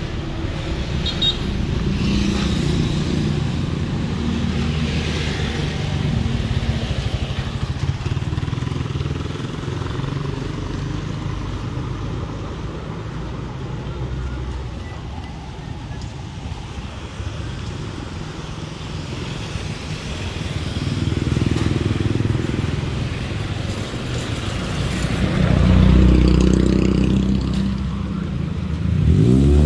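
Street traffic: cars and motorcycles driving past with engines running, swelling as a car passes close near the end.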